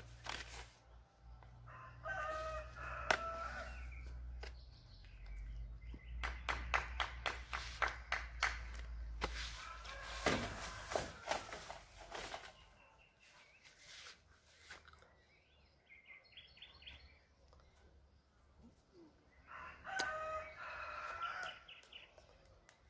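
A rooster crows twice, each crow about a second and a half long: once early on and once near the end. In between comes a run of rapid clicks, about five a second, and then rustling as plastic trimmer-line spools are handled and put away.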